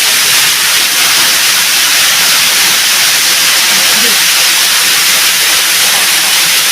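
Waterfall: loud, steady rush of falling water, an unbroken hiss.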